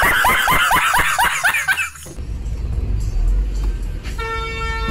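A man laughing loudly in quick rising 'ha-ha' bursts, about five a second, for two seconds; it cuts off abruptly. Then the low steady rumble of a car's engine and road noise heard from inside the cabin, with a short steady horn-like tone near the end.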